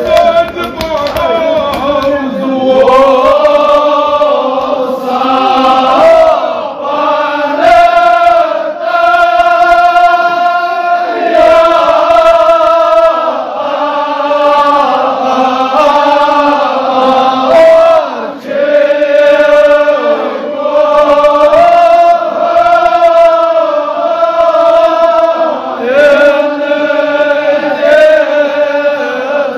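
Men chanting a Kashmiri marsiya, a Shia lament for Imam Husain, together in long melodic lines with held, gliding notes.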